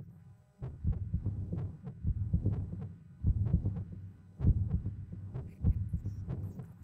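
Low, heartbeat-like throbbing pulse that swells about once a second over a low hum, with light scattered clicks above it.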